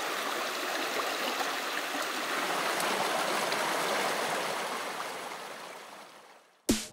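A small mountain creek rushing over stones, a steady wash of water that fades away over the last couple of seconds. A sudden loud hit comes just before the end.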